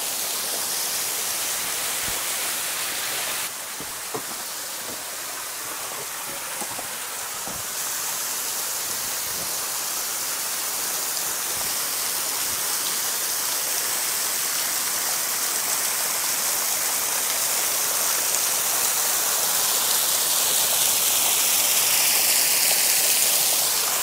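Waterfall pouring off a rock ledge onto boulders: a steady rush of falling and splashing water that grows gradually louder toward the end as it is approached.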